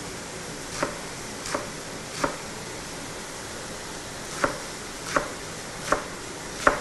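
Chef's knife chopping romaine lettuce on a wooden cutting board: seven short knocks as the blade cuts through the leaves onto the board, about one every 0.7 seconds, with a pause of about two seconds in the middle.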